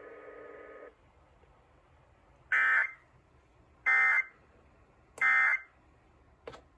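NOAA Weather Radio SAME end-of-message signal: three short bursts of digital data tones, about 1.3 seconds apart, marking the end of the weekly test broadcast. Before them, a steady hum cuts off about a second in.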